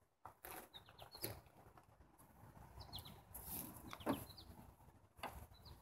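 Quiet outdoor ambience: birds chirping in short, high, downward-sliding notes every second or so, with a few faint light clicks and knocks.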